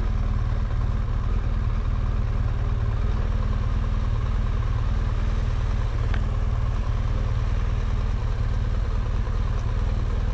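Motorcycle engine idling steadily, an even low pulsing rumble.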